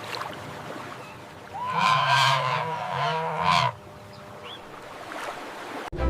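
Flamingo giving a nasal, goose-like honking call lasting about two seconds, starting between one and two seconds in.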